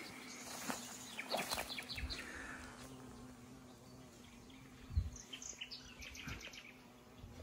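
Honeybees buzzing as a faint, steady hum among meadow flowers. Groups of short, high chirps come about a second in and again from about five to six and a half seconds, and there is a soft thump near five seconds.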